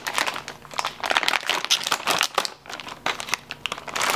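Plastic wrapper of a roasted seaweed snack pack crinkling and crackling as fingers work it open, with a brief pause about two and a half seconds in.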